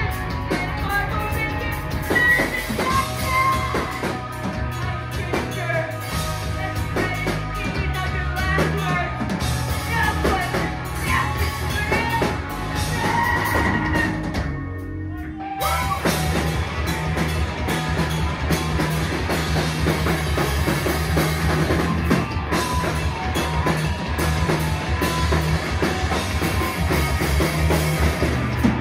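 A live rock band plays loudly: distorted electric guitars, bass guitar and a drum kit. About halfway through, the band cuts out for a moment, leaving one held note, then comes back in at full force.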